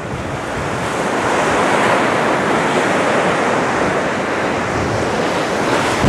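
Storm surf from a rough sea breaking against a concrete seawall and beach: a steady, wide rush of waves that builds over the first second, with strong wind mixed in.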